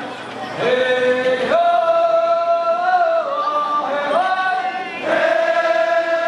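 Amis harvest-festival song: many voices chanting together in long held notes, sliding up and down between pitches, with a few breaks between phrases.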